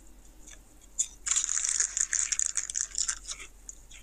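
Crunching of a bite of a Doritos Dinamita Tangy Fiery Lime rolled tortilla chip: a dense, crisp crackle that starts suddenly about a second in and lasts about two seconds.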